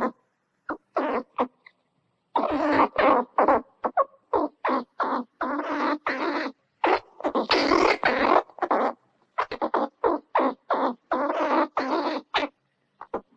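Squirrel chattering: rapid runs of short, harsh calls, coming in groups of a second or so with brief silences between them.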